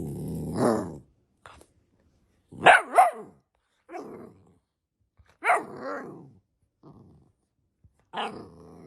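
A dog barking: a longer bark in the first second, two sharp barks in quick succession about three seconds in, then a few more spaced-out barks.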